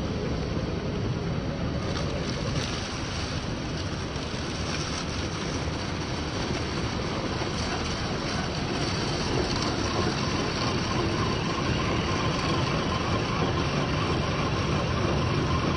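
Steady rushing water of a waterfall, with a faint steady whine joining about ten seconds in.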